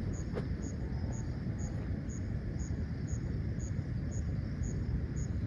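An insect, likely a cricket, chirping at an even pace of about two short high-pitched chirps a second, over a steady low rumble.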